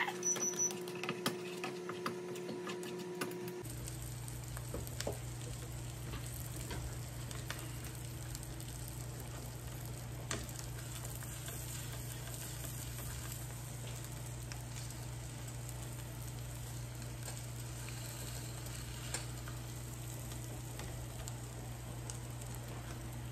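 Eggs frying in a skillet, sizzling quietly, with a spatula stirring and scraping the pan now and then. A steady low hum comes in suddenly about three and a half seconds in.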